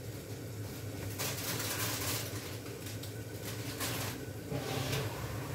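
Gas stove cooking: a steady low hum and hiss from the lit burners and the food on them. The hiss swells louder for about a second, a little after one second in, and again around four seconds in.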